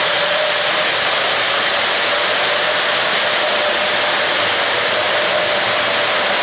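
Three-rail O-gauge model freight cars rolling past close by: a steady noise of metal wheels running on the track, with a steady hum through it.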